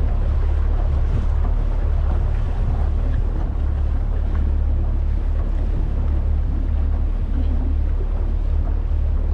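Small motorboat under way at low speed: its outboard motor runs in a steady low rumble, mixed with wind buffeting the microphone and water noise.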